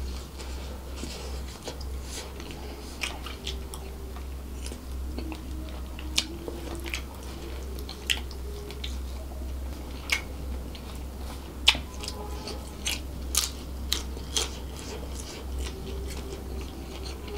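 Close-miked chewing of seafood fried rice eaten by hand, with many sharp wet mouth clicks and smacks scattered through it; one click a little past the middle is the loudest. A steady low hum sits underneath.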